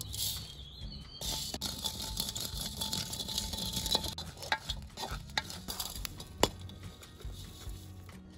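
Coriander seeds being dry-roasted in a clay pot and stirred with a coconut-shell ladle: a dense, scratchy rattle of seeds scraping and skittering over the clay for the first few seconds. It thins out into scattered clicks and a few sharp knocks of the ladle against the pot in the second half.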